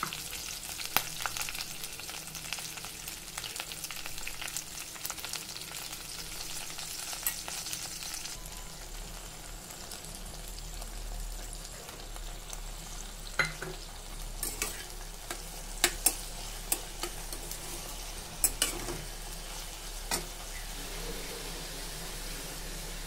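Okra frying in a kadhai with a steady sizzle that is stronger in the first third. In the second half a metal spatula stirs it, with several sharp clinks against the pan.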